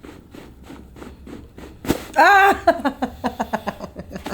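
A single sharp crack from a strong chiropractic thrust on the upper back and base of the skull. It is followed at once by a woman's loud cry falling in pitch, then a run of quick, short breathy vocal pulses.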